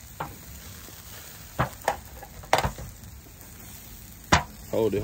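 Meat sizzling on a barbecue grill, with a few sharp clacks scattered through as it is handled.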